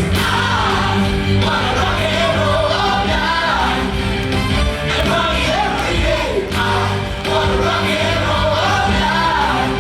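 Amplified rock-and-roll song played over a stage sound system, with several performers singing together over steady bass notes.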